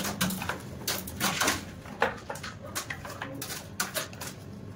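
Irregular scraping and knocking of a copper rod raking scale and sludge out of an electric water heater's tank through the heating-element opening.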